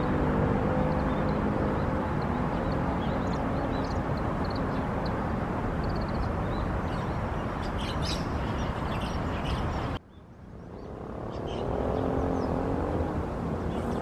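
Steady drone of distant engines under outdoor background noise, with brief high bird chirps scattered through. About ten seconds in the sound drops sharply and fades back up as a new engine drone rises.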